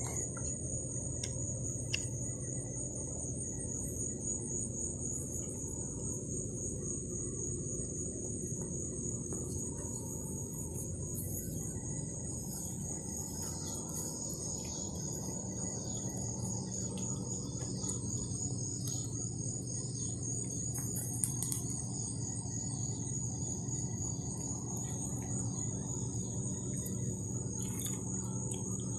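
Crickets chirring in a steady, unbroken high-pitched chorus, over a steady low hum.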